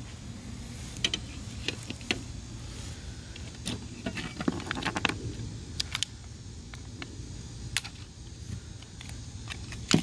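Hand cutters snipping the plastic packaging off a new circular saw blade, with the metal blade being handled: a scattered series of sharp clicks and snaps, thickest about halfway through, with the loudest snap at the very end.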